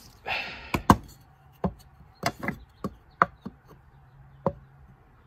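A hammer strikes a wooden block held against a Jeep Cherokee XJ blower motor, tapping to work loose the flange stuck on the motor. A short rustle comes first, then about ten sharp knocks in an uneven rhythm, the strongest about one second and three seconds in.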